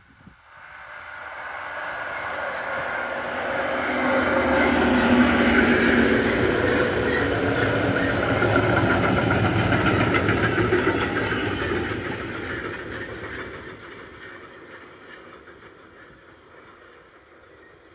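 Freight train of covered sliding-wall wagons passing on the main line: the wheel and rail noise builds as the train approaches, is loudest for several seconds as the wagons roll by with a clickety-clack over the rail joints, then fades away as the train moves off.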